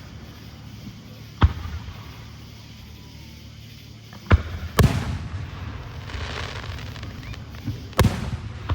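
Fireworks going off: a sharp bang about a second and a half in, two close together near the middle, and another near the end. Each bang is followed by a rolling low rumble.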